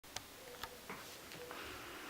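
Two faint sharp clicks, about a fifth and two-thirds of a second in, then a softer knock and light handling noise. A faint steady hum runs underneath.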